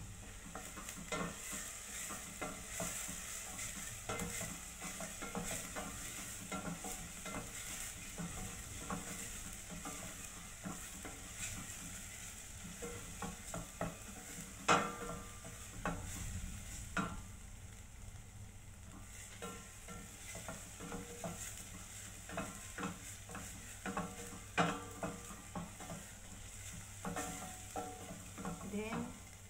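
Wooden spatula stirring and scraping in a stainless steel pot over a steady sizzle of frying, with frequent clicks and scrapes. About halfway through, a metal spoon knocks sharply as minced pork is spooned from a bowl into the pot.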